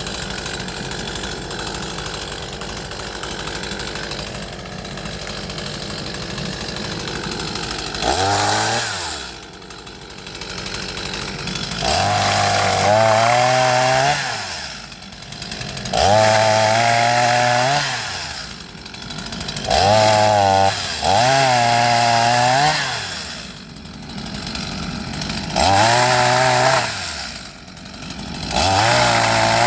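Small gasoline chainsaw idling, then revved to full throttle about seven times in bursts of one to three seconds, the engine pitch falling back to idle between bursts.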